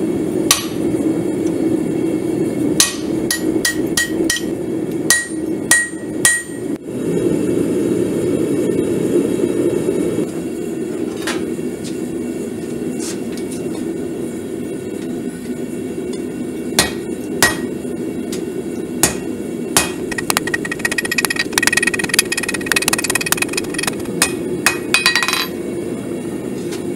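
Hammer strikes on red-hot steel on an anvil, coming in irregular runs, with a quick flurry of lighter blows near the end and the anvil ringing after some strikes. A steady gas-forge burner roar runs underneath.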